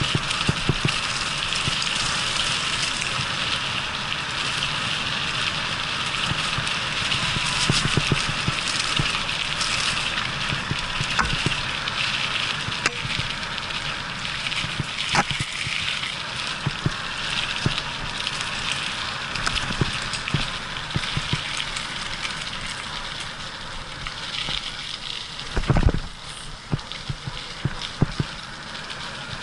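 Mountain bike riding over a rough forest trail: a steady rush of tyre noise and crackle, with scattered knocks as the bike jolts over bumps and one heavier thud near the end.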